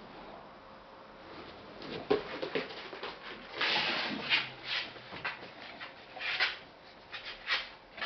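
English bulldogs moving about on a wooden floor. About two seconds in, a run of short clicks and scuffs begins, broken by a few longer, breathy bursts.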